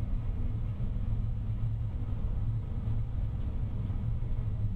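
A steady low rumble with a drone in it, holding without let-up.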